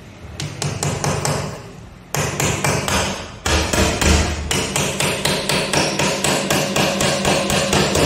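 A small hammer tapping a thin nail into the edge of a plywood panel: quick, even blows, about four a second, with two brief pauses in the first few seconds.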